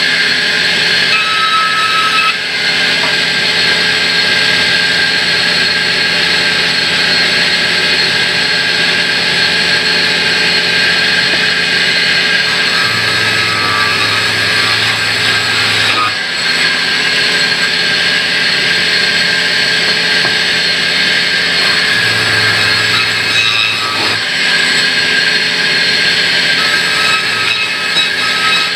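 Large sawmill band saw running loud and steady, its blade cutting through slabs of a log as they are fed through.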